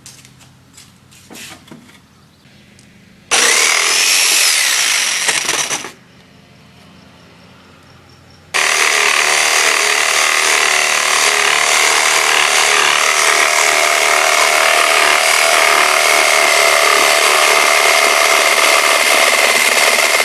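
Electric jigsaw cutting rounded edges in a wooden board: a short burst of about two and a half seconds, a pause, then running steadily and loudly from about eight seconds in, with a steady motor whine over the blade noise. A few faint clicks come before the first cut.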